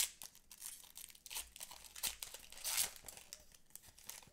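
Foil booster-pack wrapper crinkling and rustling in quick irregular crackles as trading cards are pulled out and handled, with a louder crinkle right at the start and another a little under three seconds in.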